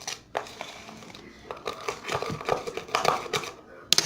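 Sticky slime being scraped out of the corners of its container and worked: irregular clicks and scrapes.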